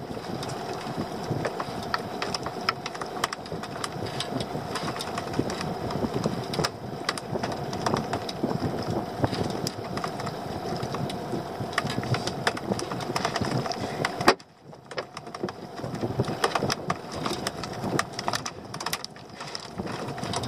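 Fishing reel being cranked while a hooked fish is reeled in: a steady mechanical whir with irregular ticks. It stops briefly about two-thirds of the way through, then carries on.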